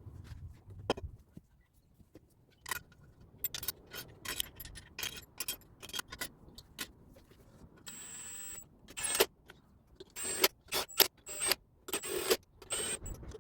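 Clicks, taps and scrapes of small plastic parts being handled and pressed together, as a brake booster vacuum line connector, O-ring and pipe piece are fitted. There is a short hiss about eight seconds in.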